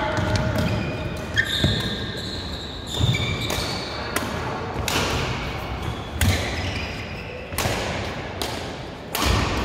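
Badminton rally in a large hall: racket strings smacking the shuttlecock about every one to one and a half seconds, with court shoes squeaking on the court mat and footfalls between the hits, echoing in the hall.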